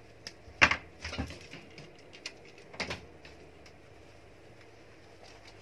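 A few short, sharp clicks and rustles in the first three seconds, the loudest a little over half a second in: pliers working the wire stems of artificial flowers while the flowers are handled.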